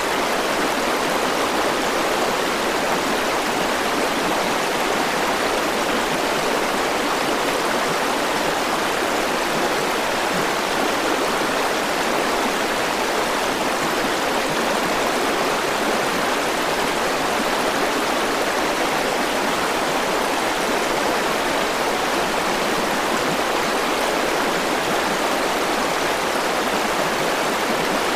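River water flowing over stones in a steady, even rush.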